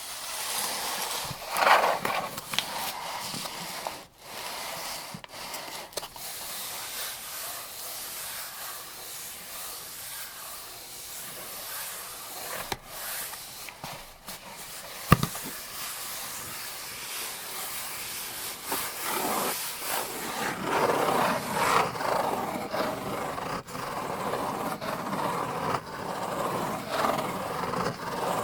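Rifle cartridges being loaded into a 75-round AK-47 drum magazine: close, continuous rubbing and scraping of metal with many small clicks, and one sharp click about halfway through.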